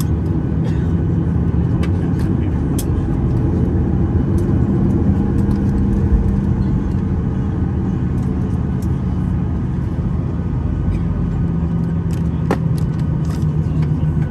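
Steady low engine rumble heard from inside a moving vehicle, with a constant hum and a few faint clicks.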